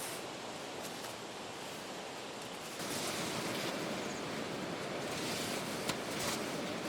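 Steady rushing outdoor noise that suddenly gets louder about three seconds in, with a single faint click near the end.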